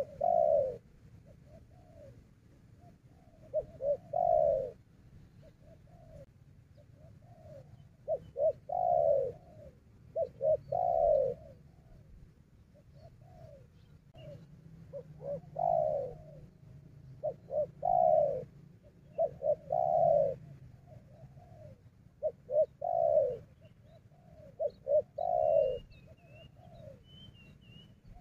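Spotted dove cooing: a repeated phrase every two to three seconds, a few short coos building to a longer, louder falling note. A few faint high chirps from a small bird come near the end.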